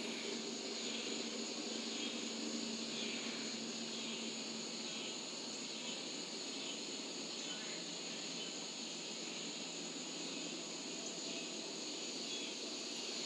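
Chorus of cicadas buzzing in a steady, continuous high drone.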